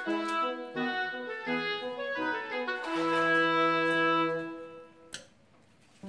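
Instrumental background music: a melody of short notes, then one long held note about three seconds in, fading out about five seconds in. A single short click near the fade.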